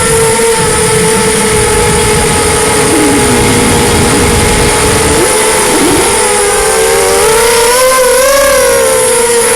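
Racing quadcopter's brushless motors whining on 4S power with Gemfan 5045 propellers. The pitch holds steady, then wavers up and down near the end as the throttle changes. Gusty wind rumbles on the microphone underneath.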